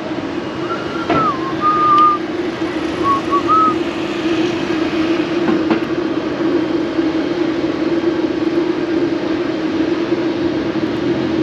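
Steady urban background drone over a general hiss, with a few short whistled notes that hold and dip during the first few seconds, and a couple of faint ticks.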